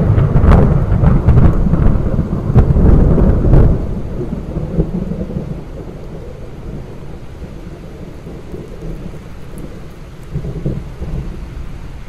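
Loud, deep thunder rumbling with several sharp cracks in the first few seconds. It then dies away to a low rolling rumble over steady rain, and a smaller rumble swells up near the end.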